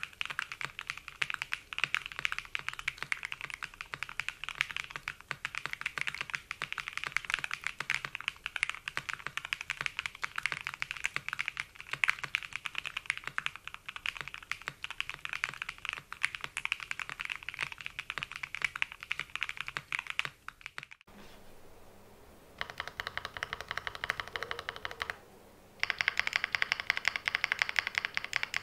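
Typing on a custom Matrix 6XV 3.0 Corsa mechanical keyboard: Nerrysicles franken switches (Cherry top housing, Tangerine bottom, Nebula stem), aluminium plate, Cherry stabilisers and CRP keycaps, giving rapid soft, creamy clacks. The typing cuts off abruptly about 21 seconds in, then after a short pause comes back in two shorter runs of keystrokes, the second one louder.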